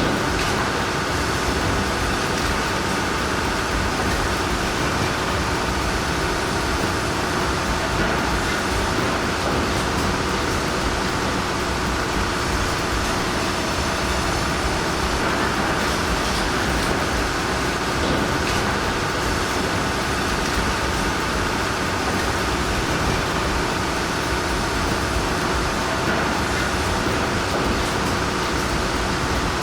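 Engines of heavy machinery running together in a steady, dense drone that does not let up.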